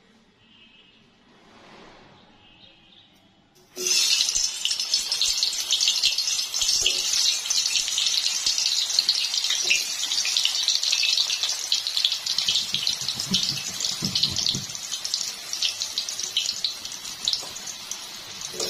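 Pumpkin chunks frying in hot oil in an aluminium wok, a loud, steady sizzle that starts suddenly about four seconds in.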